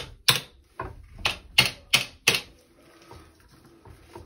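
Screwdriver working at the hard plastic hinge pieces of a slow-close toilet seat: a run of sharp plastic clicks and snaps, about seven in the first two and a half seconds, then fainter.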